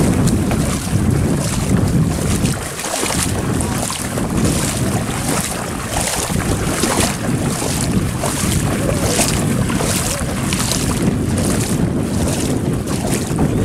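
Legs wading through shallow water, sloshing and splashing in a steady rhythm of a stride about every two-thirds of a second. Wind buffets the microphone with a low rumble throughout.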